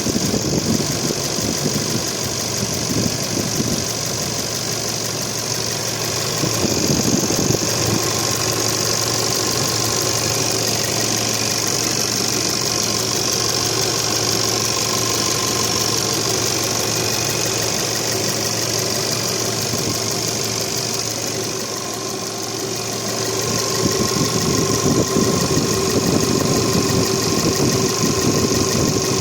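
Foton Miler 2.6 light truck's diesel engine running at idle, steady, getting slightly louder around 7 seconds in and again near the end.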